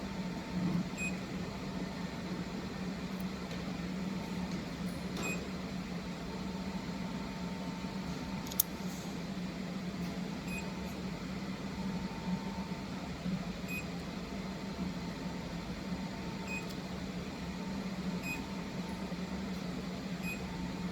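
Powered-up fiber laser welding machine humming steadily, with a dozen or so short high beeps at irregular intervals, typical of control-panel key presses, and one sharp click about halfway through.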